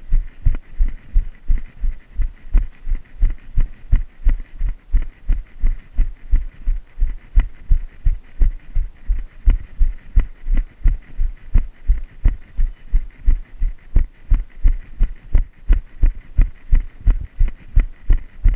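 Running footfalls jolting a body-worn action camera: even, rhythmic low thumps at about three a second, a runner's steady stride.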